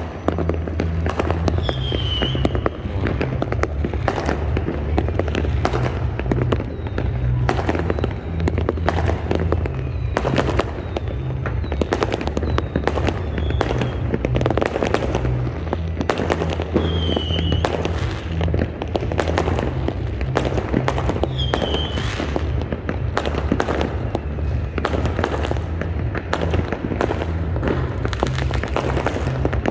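Fireworks display: dense, irregular bangs and crackles of shells bursting overhead, with a few short high whistles.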